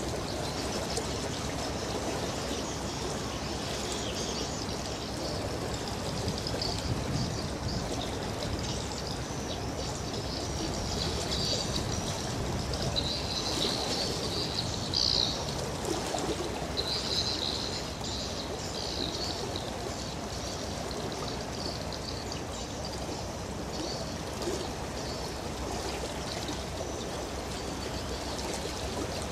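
Steady rush of river water churned by a large container ship's bow wave and wake, with birds chirping in short bursts through the middle stretch.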